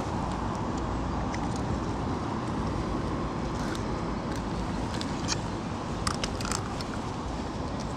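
Steady low background rumble outdoors, with a few small clicks and taps from handling a landed pike, mostly around the middle of the stretch.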